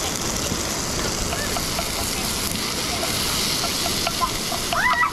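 Steady rushing of a river over rocks, with onions and peppers sizzling in a frying pan on a small gas burner as they are stirred. A voice comes in briefly near the end.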